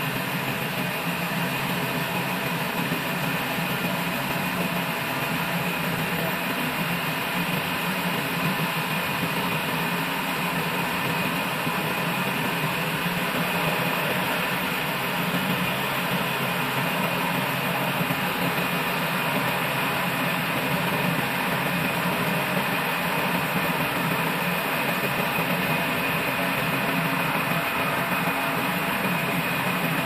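Old band sawmill running steadily, its band-saw blade cutting lengthwise through a log.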